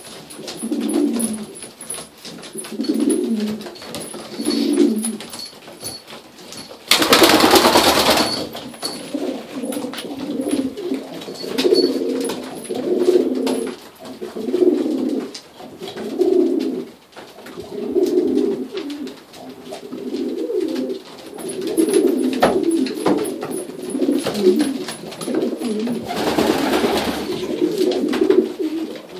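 Domestic pigeons cooing, one low coo after another. A loud rustling burst comes about seven seconds in, and a softer one near the end.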